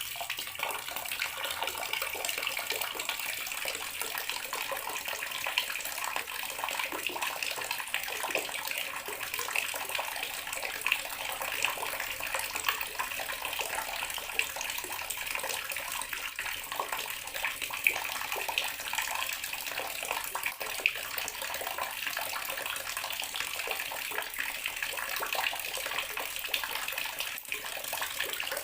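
Water running steadily from a tap into a bathroom sink: a continuous splashing stream with a few brief louder splashes.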